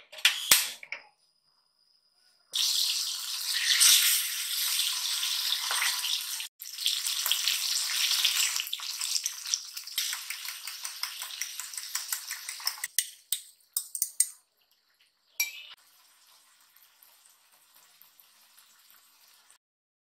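A few sharp clicks as a gas stove burner is lit, then hot oil sizzling and crackling as fish fries in a pan, in stretches that stop suddenly, ending in a faint sizzle.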